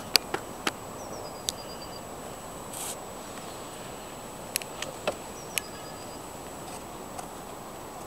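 Trackside ambience with no train running: a steady background hiss broken by several sharp clicks, a few near the start and a few more about five seconds in. A bird gives a short high call, falling in pitch, twice.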